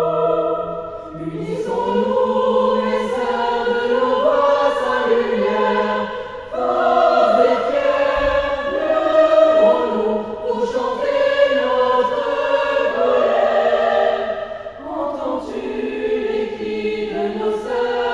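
A choir of voices singing long held chords that change every few seconds, in an excerpt from a live vocal performance.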